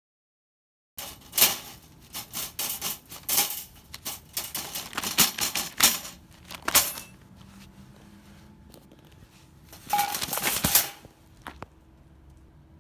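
Wire cage trap with a cat inside rattling and clanking: a run of sharp metallic clicks and knocks starting about a second in, with another loud flurry about ten seconds in.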